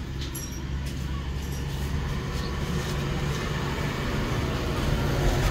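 Motor vehicle engine running steadily, its low hum gradually getting louder.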